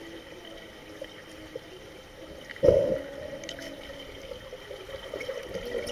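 Muffled underwater pool sound picked up through a camera housing: a steady hum with faint trickling. About two and a half seconds in there is a sudden loud thump and rush of water as the camera is moved through the water.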